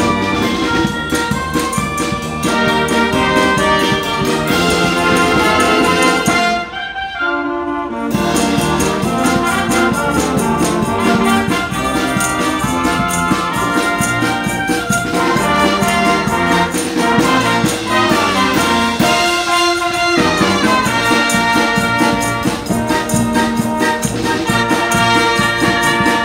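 High-school wind band playing a lively tune in the open air: brass and saxophones carry the melody over a steady beat of drum and cymbal strokes, with the drums dropping out briefly about seven seconds in.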